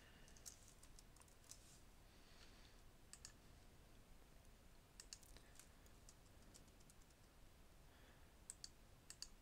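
Faint, scattered clicks of a computer keyboard and mouse, a few keystrokes at a time, over near-silent room tone.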